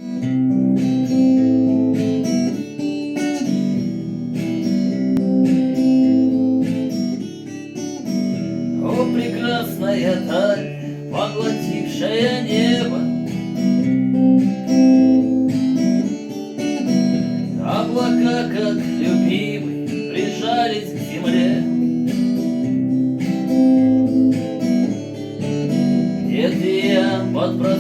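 Acoustic guitar strumming chords in a steady rhythm as a song's introduction. A few times a higher melody line with vibrato rises over the chords.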